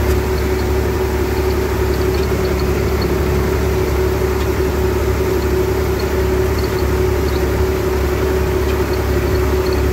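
IMT 539 tractor's three-cylinder diesel engine running steadily as the tractor drives across the field, heard from inside the cab, with a steady whine over the engine's drone.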